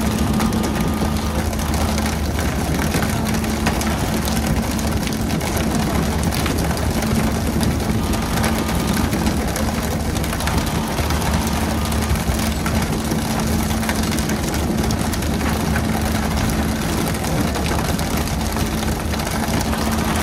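Pole-and-line tuna boat's engine running steadily, a low hum with a steady tone, under a constant hiss of water spray.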